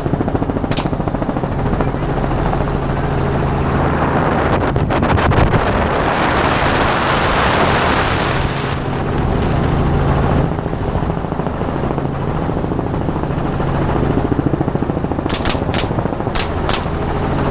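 Helicopter in low flight, heard from inside its open-door cabin: a steady rotor and engine drone with wind rush. A single sharp rifle shot comes about a second in, and a quick run of several more follows near the end.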